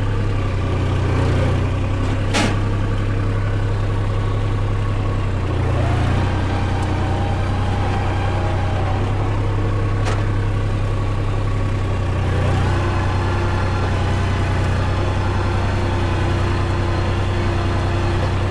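Massey Ferguson tractor's diesel engine running steadily under load while pulling a cultivator through stubble, heard from the driver's seat. A sharp click comes twice, once about two seconds in and once about ten seconds in.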